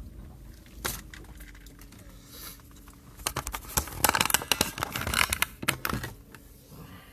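Handling noise from the recording phone: a single knock about a second in, then a rapid flurry of clicks and taps from about three to six seconds in, like fingers fumbling with the phone and its holder.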